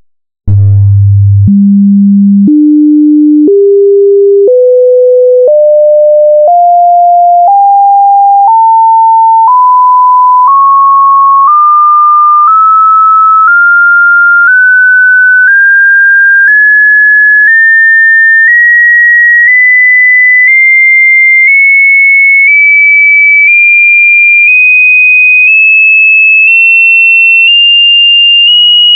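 Electronically generated pure sine test tones for a hearing test, stepping up in pitch about once a second without gaps, climbing from a low hum to a high, thin tone.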